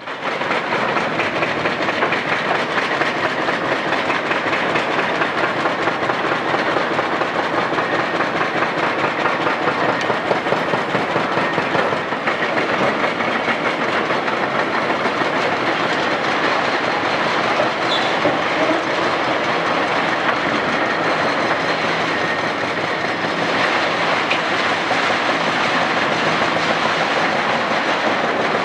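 Several Komatsu PC450LC excavators working at once. Their diesel engines run under a dense, continuous clatter of steel buckets and grapples crunching and dragging through broken concrete and rebar.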